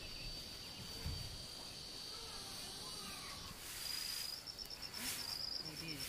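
Insects shrilling in a rural orchard: a steady high-pitched buzz, joined about two-thirds of the way in by a rapid pulsing trill at much the same pitch.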